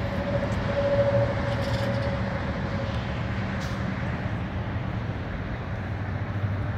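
Steady motor-vehicle and traffic rumble, with a faint engine tone that fades out about four seconds in.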